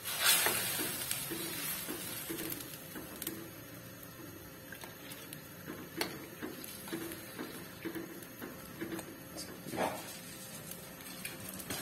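Metal spoon stirring a boiling soy-sauce broth in a steel wok, scraping and clinking against the pan over the bubbling of the liquid, with a louder knock just before the end.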